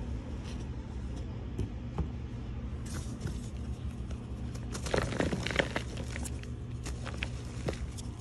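Gym chalk balls being squeezed and crumbled by hand: soft, dry crunching and crackling, heaviest about five seconds in, with a few small clicks before it. A steady low hum lies under it.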